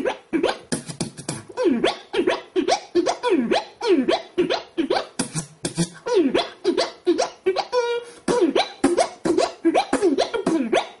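Beatboxing: a fast stream of mouth-made drum hits interwoven with quick falling 'pew' zaps, with a short held hummed note about eight seconds in.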